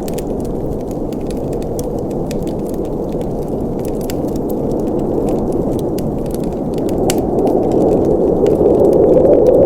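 Wood fire in a fireplace burning, with a steady low rush of flames and many small sharp crackles and pops scattered throughout. The rush grows louder over the last few seconds.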